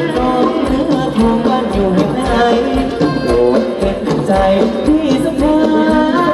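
Live band playing Thai ramwong dance music: a steady drum beat under a gliding melody line.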